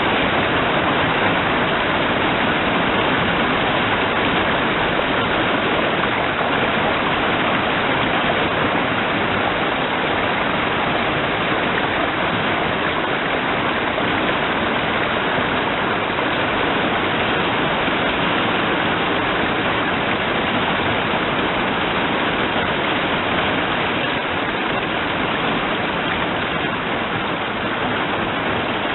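Steady spring rain falling, an even, unbroken hiss that holds at the same level throughout.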